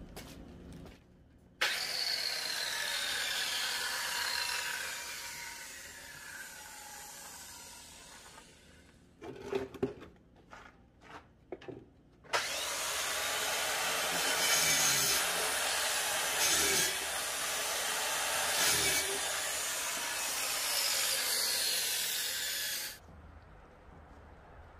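Power saw cutting oak wood, run in two long stretches that start and stop abruptly, its pitch sagging in the first cut. A few knocks of wood being handled come between the two cuts.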